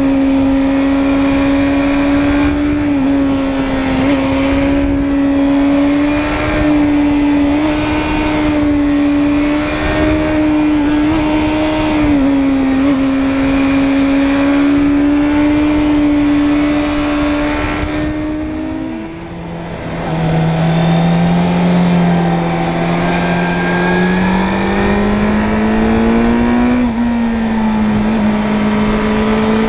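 Suzuki Bandit 600's inline-four engine running at steady high revs under way, with wind rushing over the microphone. About two-thirds of the way through the revs drop sharply, then climb slowly again.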